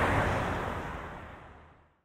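The soundtrack's tail, a steady wash of noise, fading out evenly to silence over about two seconds.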